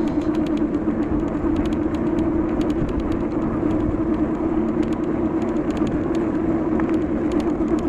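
Steady vehicle noise with a constant low hum and a rumbling background, unchanged throughout.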